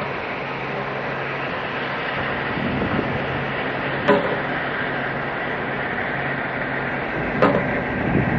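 Bulk carrier's engines giving a steady low hum under a constant rumbling wash of noise as the ship passes. Two short sharp clicks sound, about four seconds in and again near the end.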